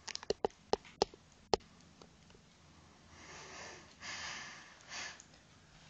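A quick run of sharp clicks and taps in the first second and a half, as the camera is handled and moved, then three breathy sniffs close to the microphone.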